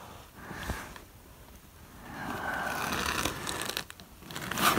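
Faint rustling and scraping, with a short, sharper scrape near the end.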